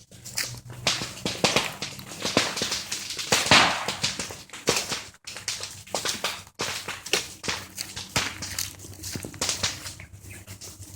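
Dry bamboo leaves and stems rustling, with many irregular sharp clicks and snaps and a louder swish about three and a half seconds in.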